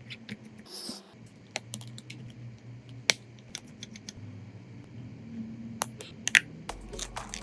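Small repair tools clicking and tapping against phone parts: scattered sharp clicks of uneven loudness, with a short hiss about a second in.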